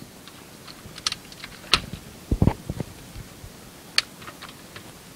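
Plastic toy M4A1 BB gun being worked by hand to cock it: a scatter of light plastic clicks and rattles, the firmest two or three in the middle.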